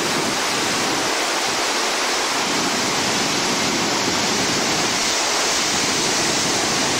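Steady, loud rush of whitewater pouring through a river rapid.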